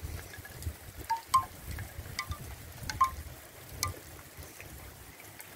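Scattered short ringing pings, about six of them at irregular intervals, the loudest about a second and a half and three seconds in, over a low wind rumble on the microphone.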